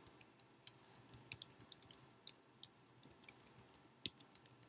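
Faint computer keyboard typing: irregular keystrokes, coming in a quicker run a little over a second in.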